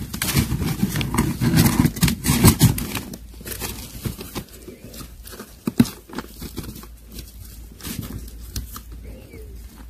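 Kittens crunching dry kibble from a styrofoam tray, with their paws rustling the newspaper underneath: a run of irregular crunches and crackles, busier for the first few seconds and sparser after.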